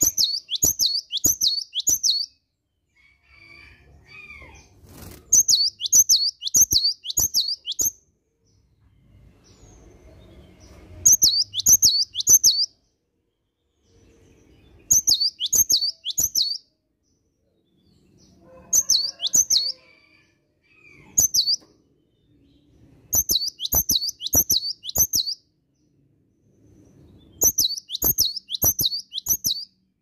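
Caged cinereous tit (gelatik batu) singing loudly: short phrases of four or five quickly repeated, ringing two-part notes, a new phrase every four seconds or so, seven in all.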